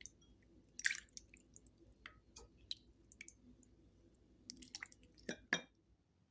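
Soup being served into a bowl: faint drips and small liquid splashes with scattered light clicks of utensil on bowl, a couple of sharper knocks about a second in and twice near the end.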